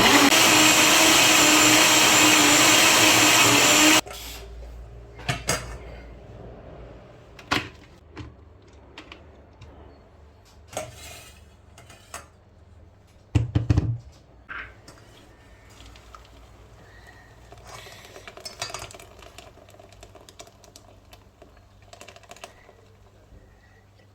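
Electric blender running steadily, then cutting off suddenly about four seconds in. Scattered clinks and knocks of kitchenware follow, with a louder knock about halfway through.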